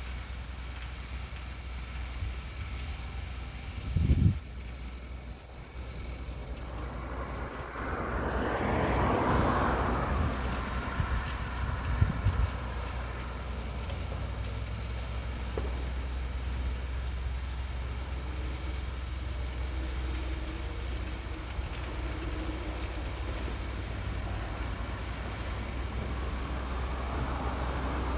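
Open-air rumble with a vehicle passing: its sound swells and fades about a third of the way in, and another builds near the end. There is a brief low thump about four seconds in.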